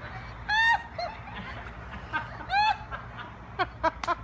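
High-pitched giggling laughter in short bursts: one about a second in, another about two and a half seconds in, and a quick run of short ones near the end.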